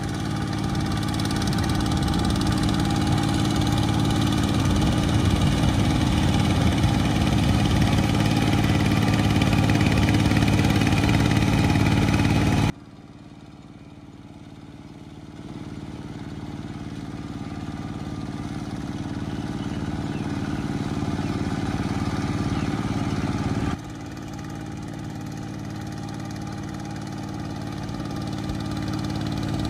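Two-wheel walking tractor's single-cylinder diesel engine running steadily while plowing a flooded rice paddy. The engine sound drops suddenly to a quieter level a little before halfway, builds back up, then drops sharply again later on.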